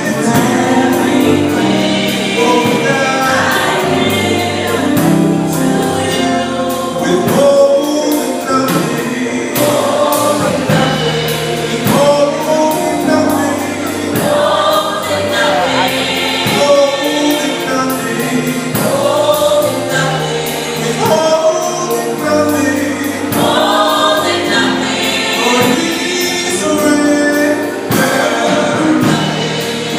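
Live gospel choir and band performing a worship song: group singing over a steady beat and accompaniment.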